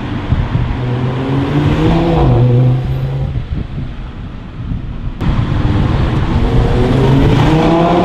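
Audi RS3 8V's turbocharged five-cylinder engine accelerating, its pitch rising, then easing off and quieter from about two and a half seconds in. A sharp crack comes about five seconds in, and the engine pulls hard again with a steadily rising pitch.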